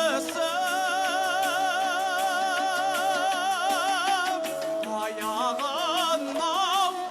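Kazakh folk song sung solo with plucked-string accompaniment. The singer holds one long note with a wide vibrato for about four seconds, then moves into shorter, ornamented phrases.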